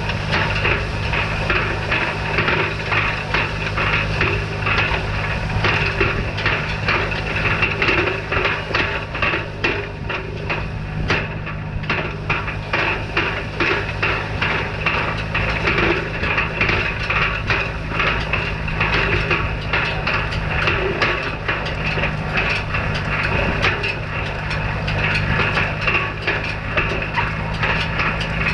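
Tractor engine running steadily while a hay rake is pulled, under a dense, continuous clatter of rapid knocks and rattles from the rake's working parts.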